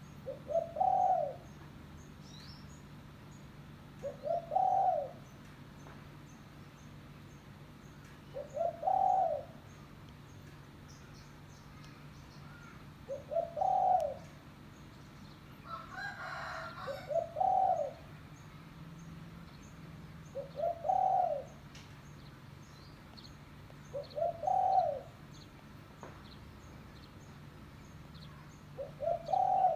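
Spotted dove cooing: eight calls about every four seconds, each one a couple of short notes leading into a longer rolling coo. Faint high chirps from small birds run behind it, and there is a brief rustle about halfway through.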